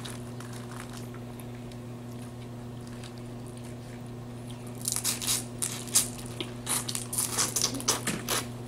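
Boiled crawfish being eaten by hand: from about five seconds in, a dense run of crackles and clicks as shells are broken and peeled and the meat is bitten and sucked out. A steady low hum sits under it throughout.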